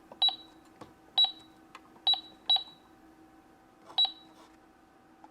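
Play-Doh McDonald's toy cash register's calculator keypad beeping as numbers are punched in: five short high beeps, each with a key click, the last after a pause of over a second.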